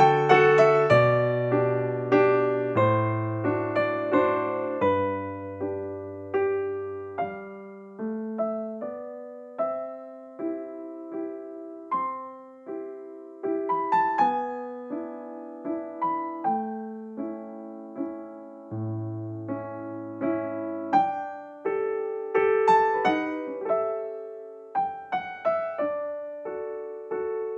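Background music: a gentle piano melody, notes struck one after another and dying away, over a slow bass line.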